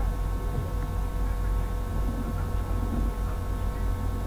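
Steady low background hum with a few faint constant tones above it, the recording's continuous background noise.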